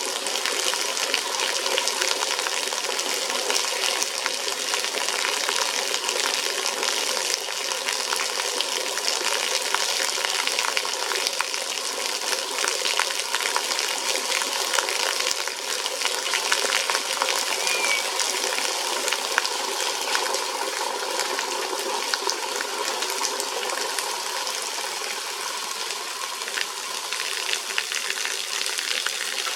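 Steady water noise: a dense, crackling rush that goes on without a break.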